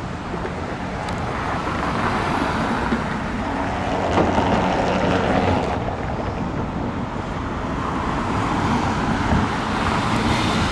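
Road traffic: cars passing on the street, their tyre and engine noise swelling as each goes by, loudest about four seconds in and again near the end.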